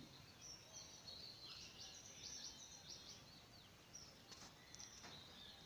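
Near silence: faint room tone with faint, high bird chirps now and then, clustered between about one and three seconds in and again near the end.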